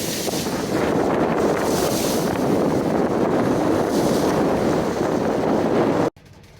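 Steady wind buffeting the microphone over the rush of water along a sailboat's hull under way at sea. It cuts off suddenly about six seconds in.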